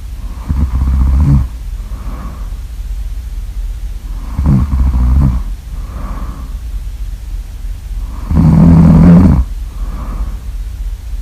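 Loud snoring: three long snores about four seconds apart, each lasting about a second, with softer breathy exhales between them, over a steady low hum.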